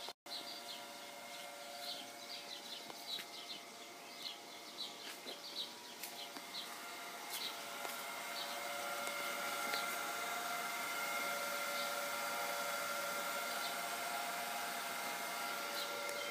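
Pool sand filter pump running with a steady electric motor hum, louder from about halfway through. Birds chirp over it, mostly in the first half.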